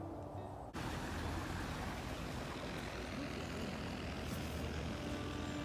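Steady outdoor hiss with a low rumble, starting abruptly under a second in as soft music cuts off.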